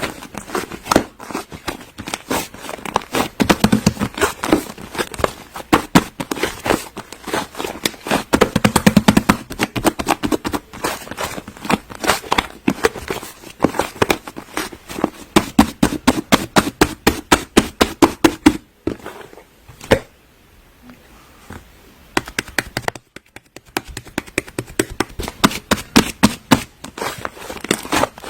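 Slime being squeezed and poked by hand, giving rapid crackling pops and clicks, several a second, with a short quieter pause about two-thirds of the way through.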